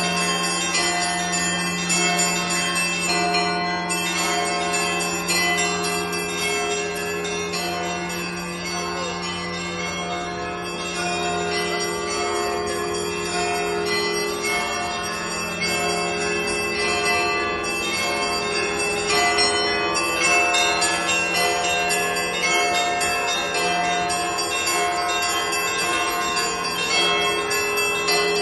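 Russian Orthodox church bells rung by hand in a continuous peal: many bells of different pitches struck in overlapping rhythm, over the long hum of a deep bell.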